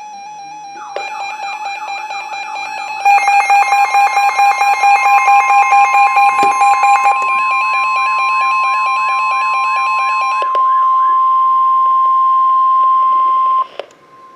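Layered electronic alert tones of a NOAA Weather Radio warning. A warbling tone and rapid, even beeping start about a second in. The steady 1050 Hz warning alarm tone joins about three and a half seconds in and cuts off sharply near the end.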